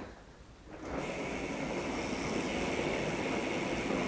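BMX rear hub freewheeling as the wheel is spun, its ratchet clicking so fast that it runs together into a steady buzz. It starts about a second in. The owner calls the hub pretty nasty, worn by two years of falls.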